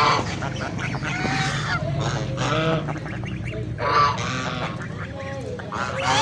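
A flock of white domestic geese honking, with several birds calling over one another. Louder honks come at the start, about four seconds in and again at the end, with softer, lower calls in between.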